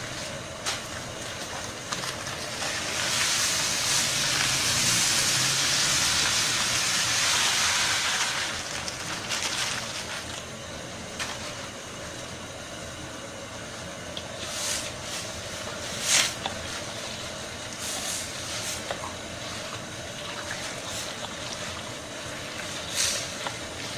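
Herbal decoction boiling hard in a pot on a stove: a steady hiss, with a louder rush of hissing for about six seconds near the start and a few sharp knocks in the second half.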